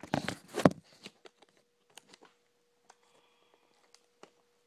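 Handling noise of a phone camera being moved: a loud rustling knock in the first second, then a few faint scattered clicks and taps over a faint steady hum.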